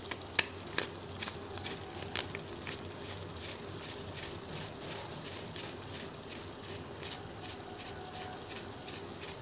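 Thick spice masala slow-frying (kasha) in oil in a pan, sizzling with a faint steady hiss and frequent small pops and spatters.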